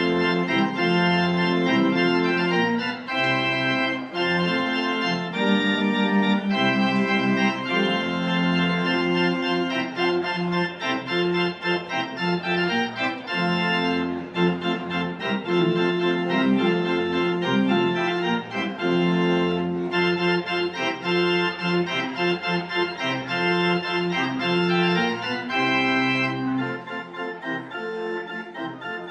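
Church organ played from a two-manual console: full sustained chords changing in a steady pulse, growing softer near the end.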